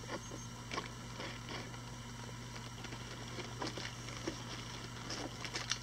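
Quiet steady low hum with faint scattered clicks and light rustling from small kit items being handled, getting busier near the end.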